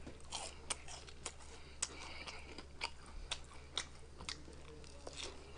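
A person chewing crinkle-cut fries and biting into a breaded fish sandwich, with sharp clicks about two a second.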